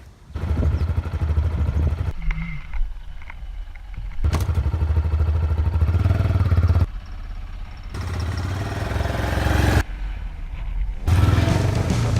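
Motorcycle engine running, in several short cut-together clips: loud stretches of pulsing engine rumble broken by quieter ones, with abrupt changes at each cut.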